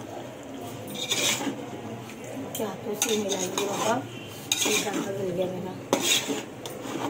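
A spoon stirring and scraping through mutton and masala in a cooking pot, with about four sharp clinks of the spoon against the pot.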